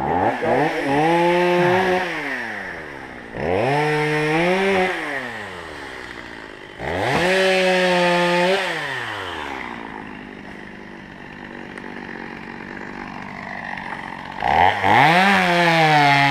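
Two-stroke chainsaw revving up four times, each time holding high for one to two seconds and then dropping back, with a few seconds of idling before the last burst. The revs fit the saw cutting into wood.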